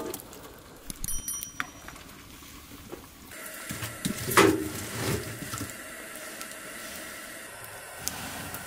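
Burning wood crackling and ticking, then a steady hiss of a fire in a small metal wood stove with crackles through it. About four and a half seconds in comes one loud scrape or clank as the fire is tended.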